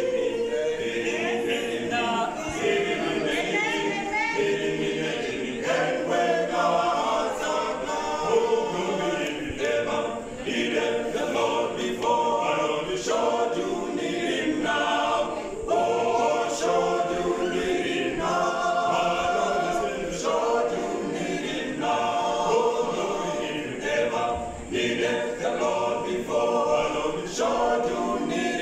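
Male a cappella vocal group singing a gospel song together, unaccompanied, in a steady rhythm.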